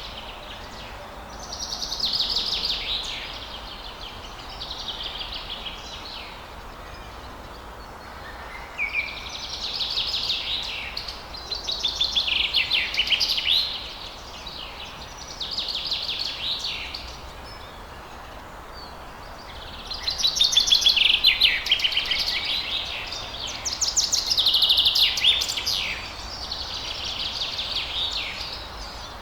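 Songbirds singing at dawn: about eight phrases of rapid, high chirping notes, each a second or two long with short pauses between, over a steady background hiss.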